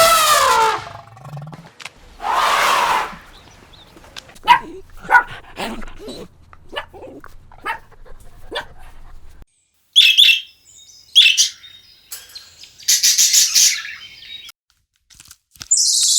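Short animal calls cut one after another: a loud call with a falling pitch, then a string of short chirps, then a few sharp high-pitched bursts. PANN hears a dog barking and birds chirping among them.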